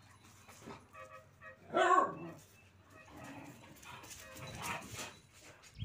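Street dogs at play: one gives a single loud bark about two seconds in, falling in pitch, with quieter scuffling sounds of the play around it.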